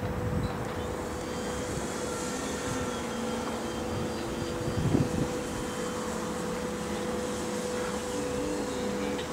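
Electric RC P51 Mustang in flight: a 970kv brushless outrunner motor drives a 14x8 wooden propeller with a steady drone whose pitch shifts a little. A brief low rumble comes about five seconds in.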